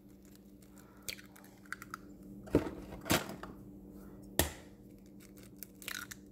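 Eggs being cracked into a glass mixing bowl: a few sharp taps and cracks of shell against the bowl, the loudest about two and a half, three and four and a half seconds in, over a faint steady hum.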